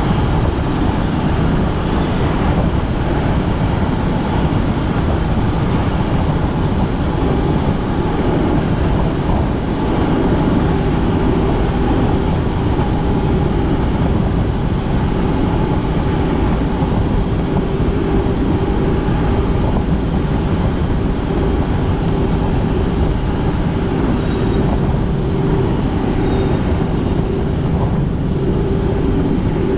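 Helicopter running, a loud, steady rotor and engine noise. About seven seconds in, a steady humming tone joins it and holds.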